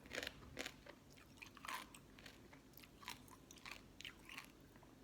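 Faint chewing and crunching close to the mouth, a mouthful of spicy green-mango salad with pickled sea crab, in irregular short crunches.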